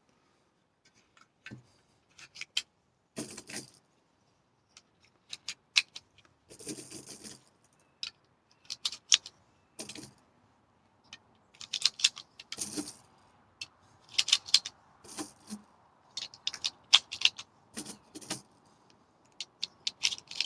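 Metal clicks and rattles from handling 1911 pistol magazines and .45 ACP cartridges. They come as irregular single clicks and short jangly bursts, typical of loading rounds into the magazines.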